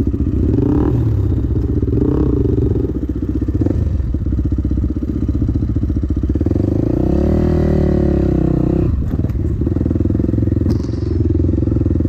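Dirt bike engine running close to the microphone, revving up and easing back down once a little past halfway, with a few knocks from the bike shortly after.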